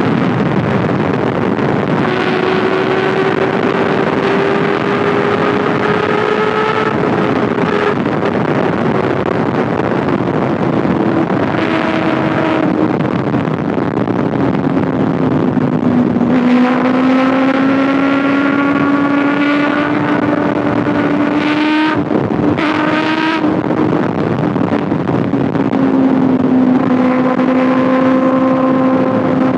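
Kawasaki ZX6R 636cc inline-four engine and exhaust running at steady cruising speed, its note slowly sinking and rising again, under a heavy rush of wind on the microphone. Two brief breaks in the engine note come about two-thirds of the way through.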